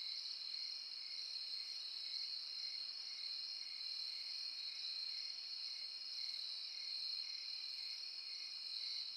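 Crickets chirring in a steady, high-pitched chorus.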